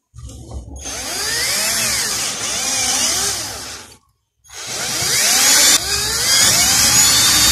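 Cordless drill with a 4 mm bit boring a pilot hole into metal for tapping an M5 thread, its pitch wavering as it loads up. It stops about four seconds in and starts again half a second later.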